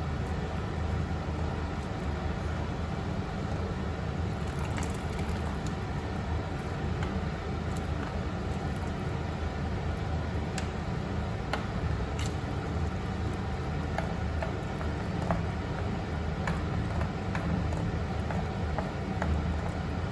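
A pot of water boiling with a steady low rumble, with scattered small clicks as wooden chopsticks pull apart blocks of instant noodles in it.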